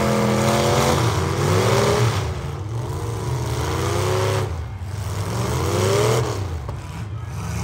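Demolition derby car engines running, with one revving up and down several times over a steady low engine drone.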